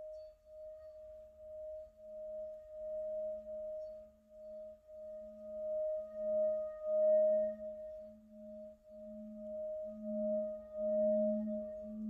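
Brass singing bowl sung by rubbing a wooden mallet around its rim: a steady ringing tone that pulses in slow waves, with a lower hum swelling louder toward the end.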